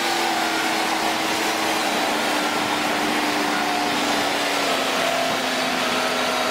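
Cat 6015B hydraulic excavator running, its engine and machinery giving a steady hiss under a tone that slowly drops in pitch.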